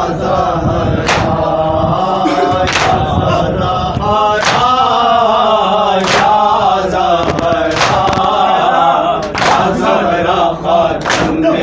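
Men chanting a nauha (Shia lament) together, with sharp chest strikes in unison about every second and a half to two seconds: matam, the rhythmic chest-beating of seenazani.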